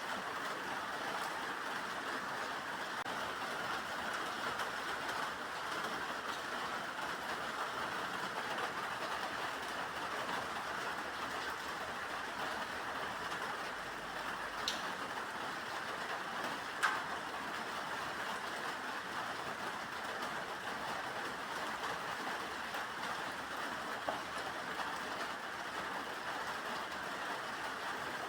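Steady rain falling, an even hiss, with a few sharp drip-like ticks around the middle.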